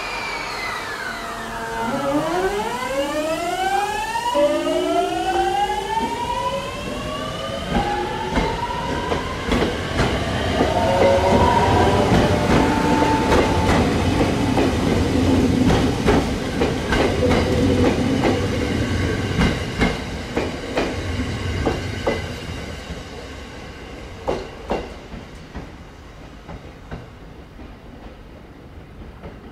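JR 209 series electric train's GTO-VVVF inverter whining in a stack of tones that climb in pitch in steps as the train pulls away and accelerates. Its wheels then click over the rail joints, loudest in the middle and fading away near the end.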